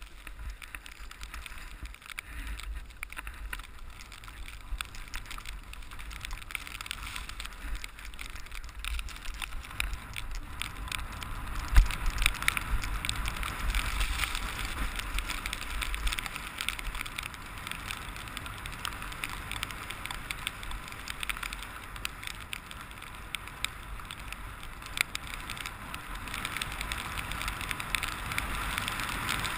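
Ski-bike's skis hissing and scraping over snow on a downhill run, with a low rumble and many small rattles and clicks from the bike. A single sharp knock about twelve seconds in, and the snow noise grows louder after that.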